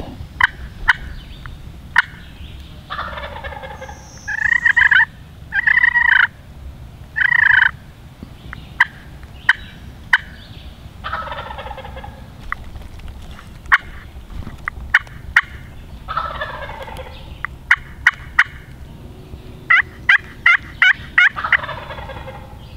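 Wild turkey gobblers gobbling several times, each gobble a rattling call about a second long that falls in pitch, with three louder, longer calls between about four and eight seconds in. Sharp clucks from a hunter's friction pot call come throughout, and a quick run of about six notes just before the end.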